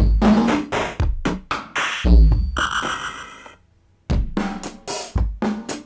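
Sampled drum patterns from a Maschine expansion kit: deep kicks, snares and hi-hats in a steady beat, with a short pitched synth stretch. The beat cuts out for about half a second a little past halfway, and another pattern starts.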